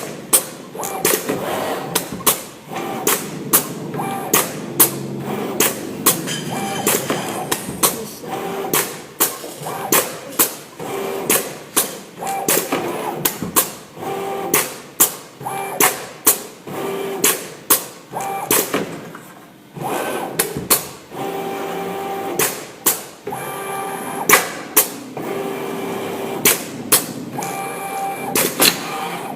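AOKE CNC flatbed cutter plotter at work: sharp knocks about once or twice a second as the tool head drops and lifts, between short whines of changing pitch from the motors moving the head.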